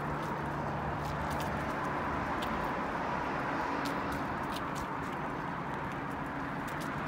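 Steady rushing noise of a bicycle rolling along an asphalt trail, with scattered light ticks.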